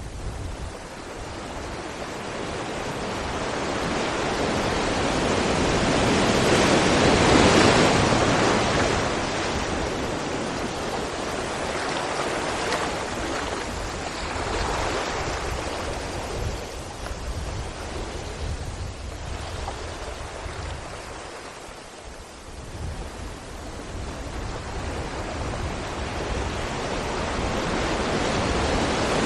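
Sea waves breaking against rocks: a continuous wash of surf that swells to its loudest crash about seven seconds in, surges more lightly after, eases off around twenty-two seconds, then builds again.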